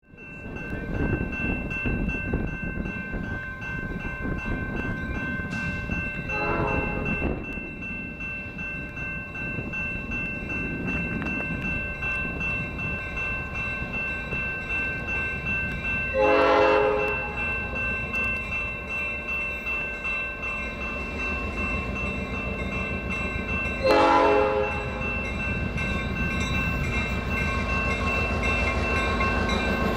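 Grade-crossing bells ringing steadily while an approaching GTW GP38-2 diesel locomotive sounds its air horn three times, each blast about a second long, about 6, 16 and 24 seconds in. The low rumble of the locomotive grows toward the end.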